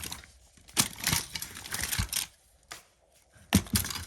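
Pens and small items being handled and moved about in a box: several sharp clicks and knocks with rustling, a brief quiet pause just past halfway, then two louder knocks near the end.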